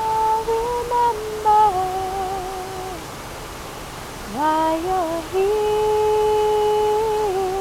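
A woman humming a slow wordless melody in long held notes, with a short pause in the middle before a note slides up into the next one. Behind it runs the steady rush of a waterfall.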